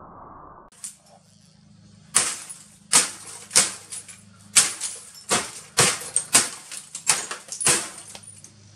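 A series of about ten sharp knocks, irregularly spaced half a second to a second apart, over a steady low hum.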